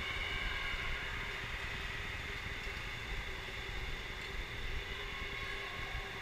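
Steady mechanical hum with a faint high whine and low rumble: the running ambience of an indoor electric go-kart track, karts and hall machinery heard from a kart stopped in the pit lane.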